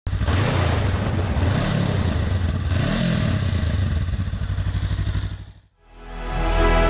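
Motorcycle engine running and revving, its pitch rising and falling twice, then fading out about five and a half seconds in. Music starts near the end.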